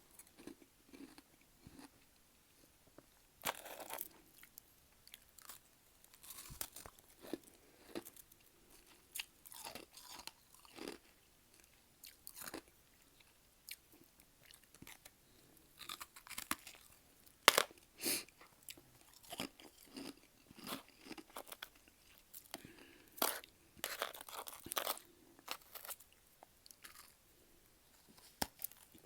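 Mouth chewing and crunching freezer frost, in irregular bites and crunches with short pauses between them, the loudest crunches near the middle and after about two-thirds of the way in.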